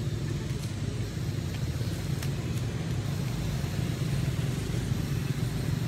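Steady low rumble of motor traffic, with a faint click about two seconds in.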